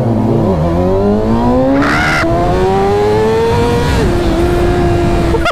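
Kawasaki ZX-6R 636 cc inline-four sport-bike engine through an Akrapovic slip-on exhaust, under hard acceleration. The revs dip at a gear change about half a second in, then climb steadily for about three seconds. An upshift drops them about four seconds in, and they then hold steady.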